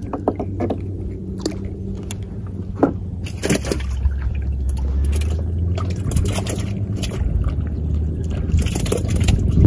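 A low, steady engine hum with water sloshing against a small boat and a few short knocks.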